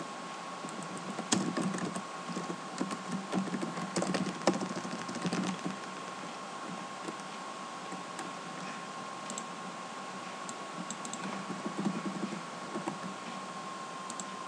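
Typing on a computer keyboard in short bursts of clicks, busiest in the first few seconds and again for a while near the end, over a faint steady tone.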